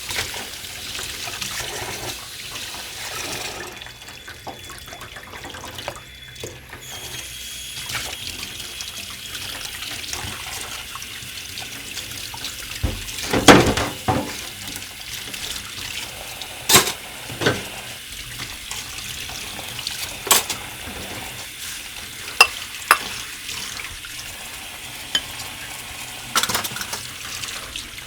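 Water running steadily, as from a tap into a sink, with scattered sharp clinks and knocks, the loudest about halfway through.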